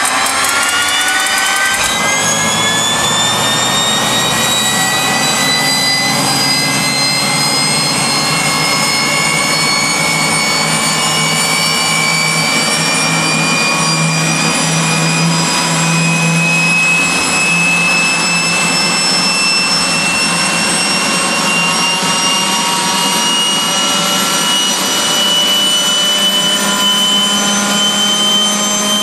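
AiResearch Garrett GTP70-9 turboshaft APU spooling up during start-up: a loud, high turbine whine that climbs quickly in pitch for the first second or two, then keeps creeping slowly higher, over a low hum.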